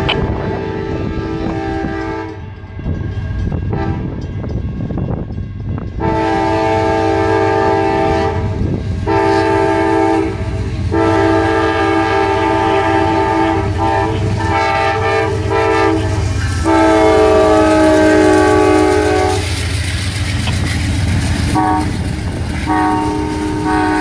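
Nathan K5LA five-chime air horn on an Amtrak GE P42DC locomotive, blown in a slight hornshow: about six long blasts of varying length with short breaks, the longest running about five seconds. Under the horn is the steady rumble of the passing locomotive and passenger cars.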